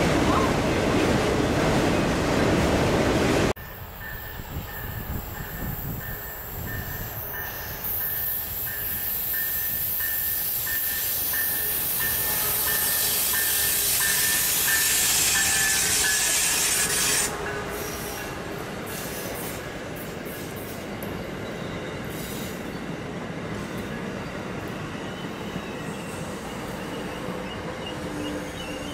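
Autorack freight cars rolling past. Then, about three and a half seconds in, an Amtrak Midwest passenger train rounds a tight curve, its wheels squealing high against the rails for over ten seconds. The squeal cuts off sharply near the middle, leaving a steady rolling noise of the passenger cars.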